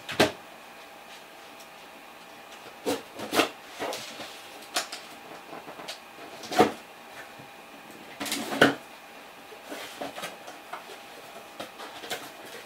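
Cardboard tool box being handled and turned around on a wooden workbench: several sharp knocks and thumps of cardboard against wood, with quieter rustling between them.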